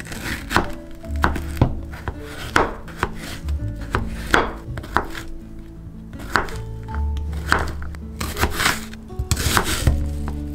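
Chef's knife slicing through zucchini and knocking on a plastic cutting board, uneven cuts about one or two a second, with a quicker run of cuts near the end as it moves on to an onion. Light background music plays underneath.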